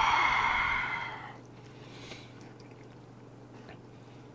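A man's loud, breathy 'haaa' exhale, which fades out after about a second and a half: the reaction to the burn of a shot of 50% kaoliang liquor. A faint tap follows, over a low steady hum.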